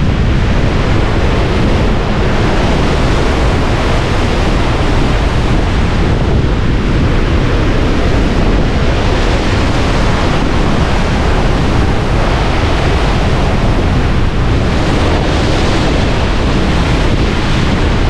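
Surf breaking and washing in around pier pilings, a steady rush of waves and foam, with wind buffeting the microphone.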